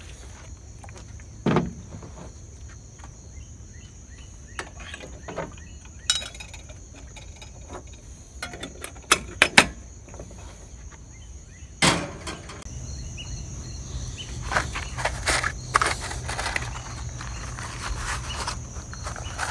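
Scattered knocks and clinks of a metal percolator coffee pot and a plastic water bottle being handled and set down on a pickup's bed liner, the sharpest a few seconds apart. Under them runs a steady high-pitched insect drone, joined by a low hum in the second half.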